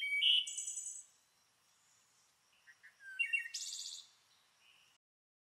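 Songbirds chirping and trilling in two short bouts of high, quick notes, the second about three seconds in, with a few fainter calls between; the sound cuts off suddenly about five seconds in.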